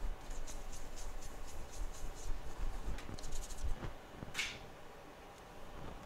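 Soft scratchy rubbing of a cleaning wipe on the metal reballing stencil, in short strokes with pauses, with one clearer swish about four and a half seconds in.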